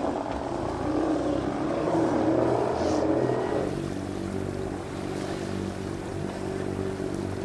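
Sailboat's engine running steadily under way. A rougher, noisier first few seconds give way to an even drone about three and a half seconds in.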